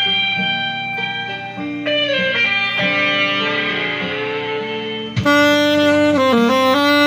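Guitar accompaniment holding sustained notes, then a saxophone comes in loudly about five seconds in, playing a slow melody line with a brief dip in pitch and back.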